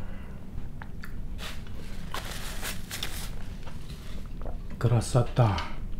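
A person chewing a bite of fresh tomato, with scattered soft mouth clicks.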